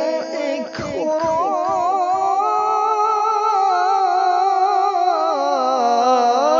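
A man's voice in Quranic recitation (tilawat), holding a long, melodic, drawn-out note with a wavering vibrato. After a short break about a second in, the pitch steps up and is held, then falls near the end.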